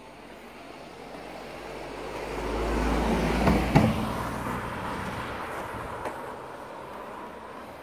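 A car driving past on the road, its tyre and engine noise swelling to a peak about halfway through and then fading away, with a sharp tick at its loudest.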